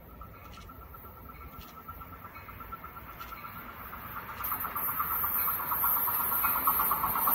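Amtrak Cascades Talgo train approaching, its rumble and a steady high hum growing louder throughout, swelling more sharply about four and a half seconds in.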